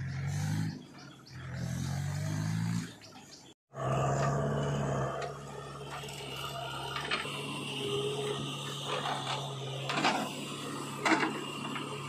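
Diesel engine of a loaded farm tractor pulling away, its pitch wavering. After a cut, a diesel engine runs steadily while a backhoe loader dumps soil into a tractor trolley, with a few clanks and scrapes from the bucket, the loudest about eleven seconds in.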